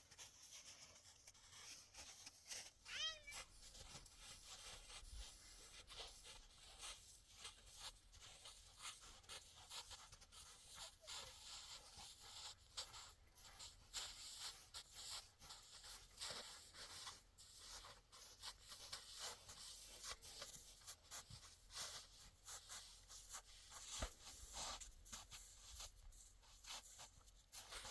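A single short animal call, its pitch bending, about three seconds in, over faint irregular crackling and clicking.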